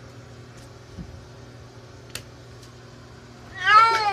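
A cat being bathed in a bathtub meows once near the end, a long drawn-out meow that rises and then falls in pitch. Before it there are only a couple of faint knocks.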